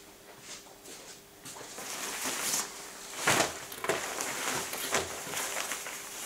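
Jack Wolfskin rain jacket rustling as it is handled and spread out flat on a table, in a run of irregular swishes, the loudest about three seconds in.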